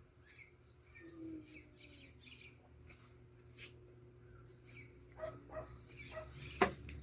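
Faint, short chirping animal calls, several in a row, with a sharp click near the end.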